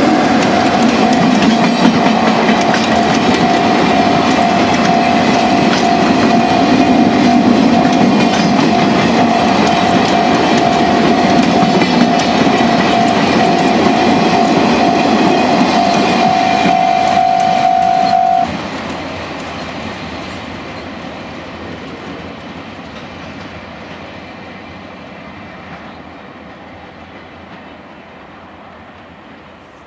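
Freight train of two-axle Wamu 80000 boxcars rolling past a level crossing, the wheels clattering over the rail joints, with the crossing's warning signal sounding as one steady tone. The signal cuts off suddenly about eighteen seconds in, and the train's rumble then fades away.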